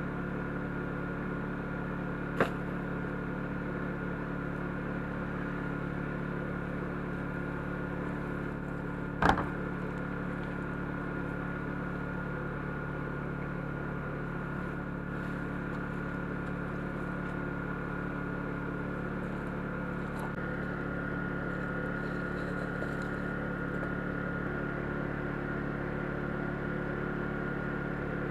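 Small portable generator running steadily with an even hum. Two sharp knocks stand out, a light one a couple of seconds in and a louder one about nine seconds in.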